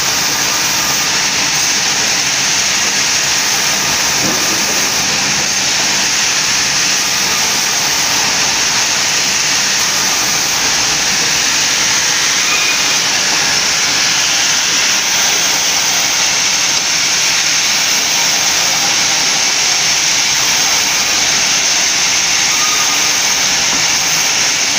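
Sawmill band saw running continuously and cutting boards as they are fed through it, making a loud, steady noise.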